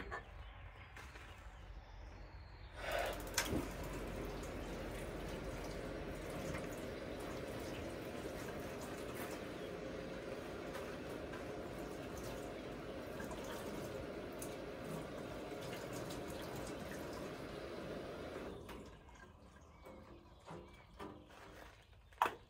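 Water running steadily for about sixteen seconds, starting with a knock a few seconds in and stopping well before the end. A few sharp clicks follow, the loudest just before the end.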